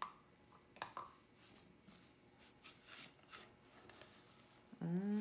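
A spatula stirring and scraping a thick cheese-and-mayonnaise mixture around a stainless steel mixing bowl, with two light knocks in the first second and faint repeated scrapes after. A voice sounds briefly near the end.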